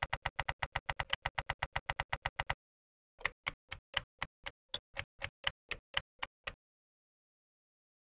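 Typing keystrokes: a fast, even run of clicks about nine a second for a couple of seconds, a short pause, then fourteen slower clicks about four a second that stop about two-thirds of the way through.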